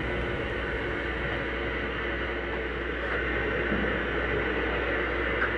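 Steady machinery noise on a gunite job site: a low hum under an even hiss, with no separate knocks or strokes.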